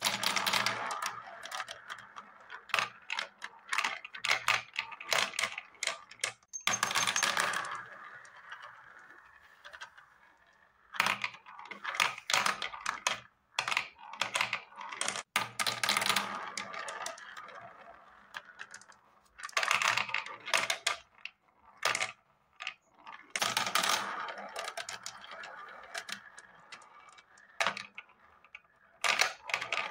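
Small plastic balls rolling around a plastic spiral-funnel marble run and dropping through it to the tiers below. They come in repeated bursts of quick clattering clicks, with a rolling hum between the clicks.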